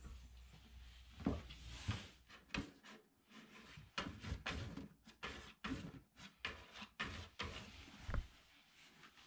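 A cat rummaging in a cardboard box, pushing its head in and rubbing against the cardboard to scent-mark it: a string of faint, irregular scrapes, scuffs and small taps.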